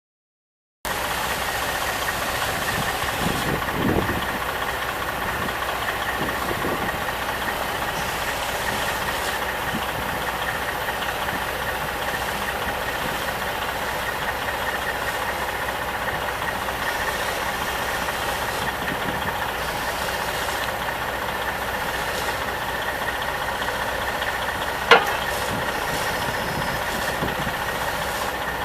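Diesel engine of a portable scrap baler running steadily at idle, cutting in abruptly about a second in. One sharp click sounds near the end.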